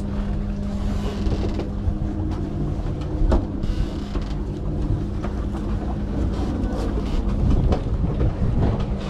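A steady engine drone with a held low hum that fades about seven seconds in. Scattered knocks and rustles of litter being picked up and cleared away sound over it, the sharpest about three seconds in.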